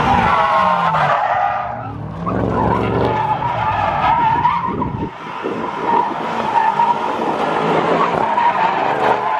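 Car tires squealing continuously as a car slides sideways in a drift, the squeal wavering in pitch, over engine noise that drops away about halfway through.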